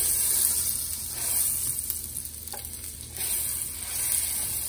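Four tablespoons of butter sizzling as they melt in a hot skillet, pushed around with a wooden spoon. The hiss eases slightly midway and swells again about three seconds in.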